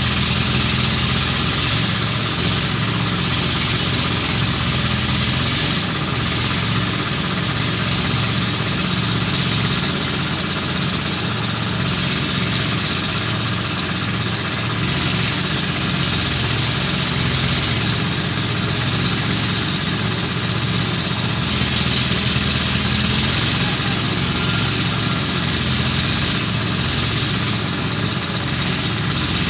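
Engine of farm machinery running steadily at an even speed, with no revving or pauses.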